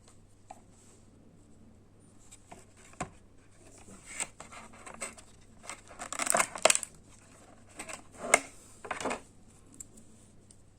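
Hands handling a USB-C wall charger and its packaging: scattered light clicks and taps with short rustles. The loudest rustling comes about six seconds in, followed by a sharp click just after eight seconds and a last rustle a second later.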